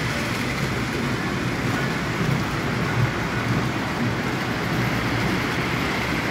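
Steady rumbling of model trains running on a layout, mixed with the hubbub of a busy indoor crowd.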